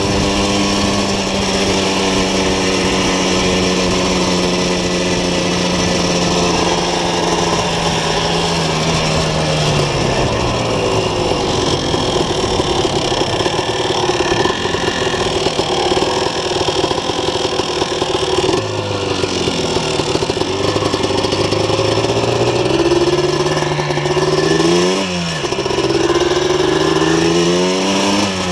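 Single-cylinder two-stroke engine of a 2000 Yamaha Blaster 200 quad with a full Doma Racing exhaust, heard on board while riding. It holds steady revs at first, drops to lower revs about ten seconds in, then revs up twice near the end with a short drop between.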